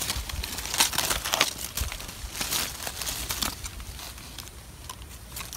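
Dry leaf litter rustling and crackling under hands digging mushrooms out of the forest floor, in irregular crackles that thin out over the last couple of seconds.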